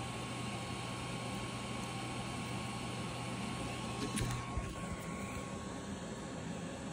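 Steady whir of an Ender-3 Pro 3D printer's cooling fans, with a low hum under it. A few short handling clicks come about four seconds in, and a thin high tone in the hum stops soon after.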